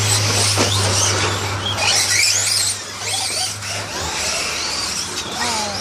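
Whine of a Traxxas radio-controlled car's electric motor, rising and falling in pitch as the car speeds up and slows. Under it runs a steady low hum that stops about four seconds in.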